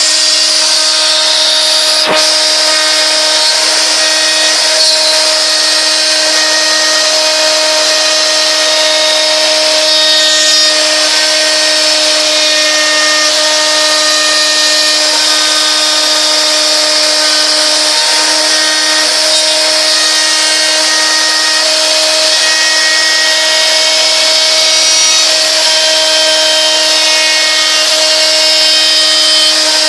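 Homemade CNC machine's spindle running at a steady high speed while cutting: a constant whine with a high hiss from the cut. There is one sharp click about two seconds in.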